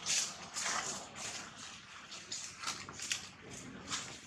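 Dry fallen leaves crackling and rustling under macaques moving on the forest floor, in a string of irregular short crackles.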